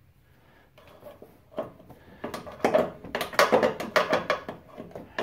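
Irregular clicks, clanks and knocks of hands and tools working on the Ford Explorer's front suspension parts around the strut top and upper control arm. They start sparse about a second and a half in and become a dense, louder run from about two seconds in.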